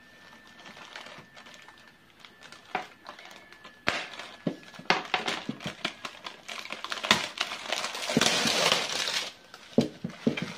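Plastic film and bubble wrap crinkling and rustling as hands pull at it, with many sharp crackles and clicks. The loudest, densest stretch of crinkling comes about eight seconds in and lasts about a second.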